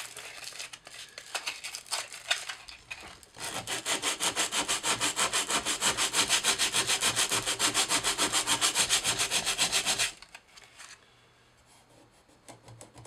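150-grit sandpaper rubbed by hand over the aluminum bell housing of a 1982 Royal Model 880 vacuum to take out deep scratches. The paper rustles and scrapes irregularly at first, then settles into quick, even back-and-forth strokes, several a second, that stop about ten seconds in.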